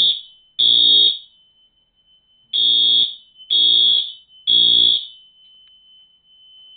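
Fire alarm horn sounding the temporal code-3 pattern: the last two blasts of one group of three, a pause of about a second and a half, then a full group of three short, loud blasts. It then stops, silenced after its second round.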